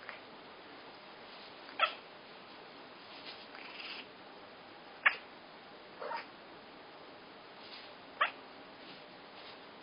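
A cat making short, sharp calls, four loud ones a second or more apart with fainter ones between: the weird sound she makes when shown a toy.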